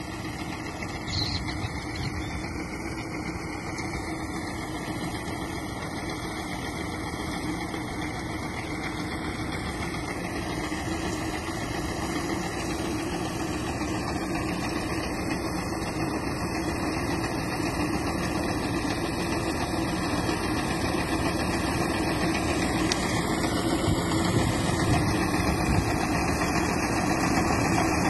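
Fiat 640 tractor's four-cylinder diesel engine running steadily as it drives a wheat reaper cutting the crop, growing steadily louder as it comes closer.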